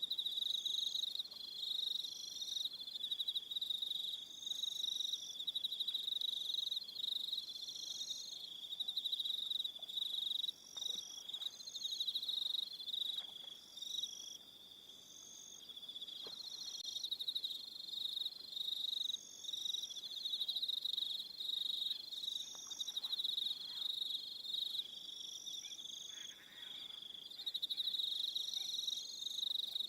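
Crickets chirping in an evening chorus: a steady, high-pitched trill with several overlapping, rhythmically pulsed calls.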